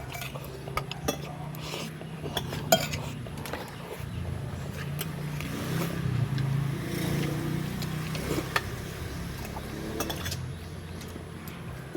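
Scattered light clinks of cutlery against a plate as someone eats, over a steady low hum.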